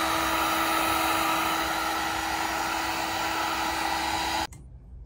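Electric heat gun blowing steadily with a hum in its airflow, switched off abruptly about four and a half seconds in.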